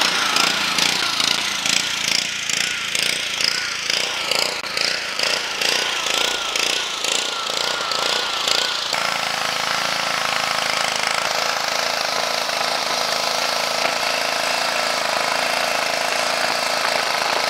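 Gas pressure washer with a Honda engine running on test with its newly fitted replacement pump, pulsing about twice a second. About nine seconds in the sound steadies and a hiss of spraying water joins as the wand's jet hits the concrete.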